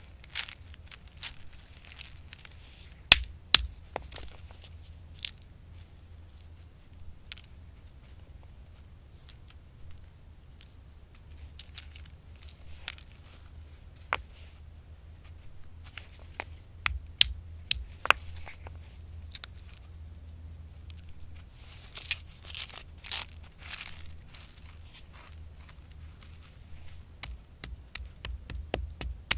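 Acorns being handled and dropped one by one into a granite mortar hole, clicking and knocking sharply on the stone, with bits of crackly rustling. Near the end a hand-held stone pestle knocks against the rock as it is set into the hole.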